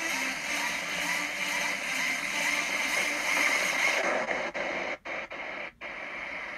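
Bellagio fountain water jets spraying into the lake, a steady dense hiss with faint music mixed in. Near the end the sound dulls and cuts out briefly three times.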